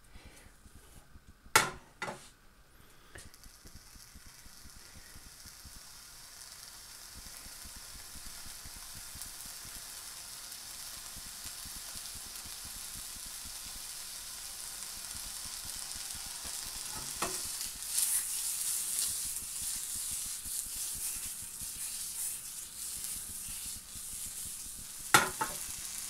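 Beef burger patty sizzling in a thin carbon-steel non-stick frying pan with no added oil, the sizzle setting in after a few seconds and growing steadily louder as the pan heats. Two sharp knocks near the start and another near the end.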